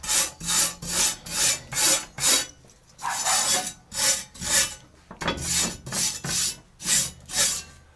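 Hand brush scrubbing the inside of a cast-iron lid-skillet in quick rasping back-and-forth strokes, about two a second, with two short breaks. The strokes scrape out the residue of burnt-off old factory grease from the porous cast iron.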